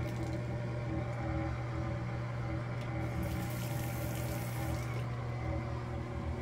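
Steady hum of a bathroom ceiling exhaust fan. About three seconds in, a brief high hiss joins it for under two seconds.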